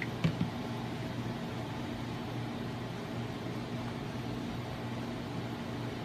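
Steady low machine hum, with two short knocks in quick succession a quarter to half a second in.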